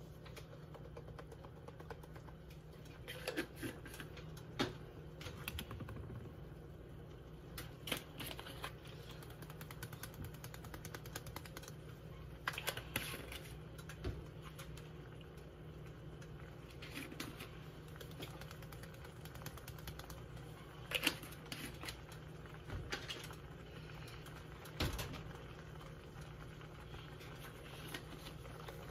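Scattered clicks and taps of plastic spice shakers and other kitchen items being picked up and set down on a counter, over a steady low hum.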